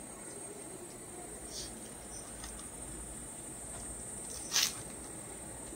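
Steady high insect chirring in the background, with a few faint clicks and one short, sharp click or rustle about four and a half seconds in.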